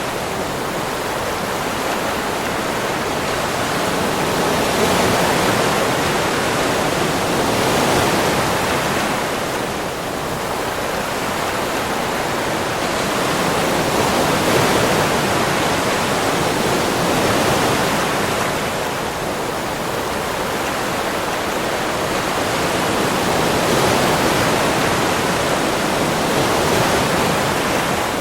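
Ocean surf: a continuous rushing wash of breaking waves that swells and eases every few seconds.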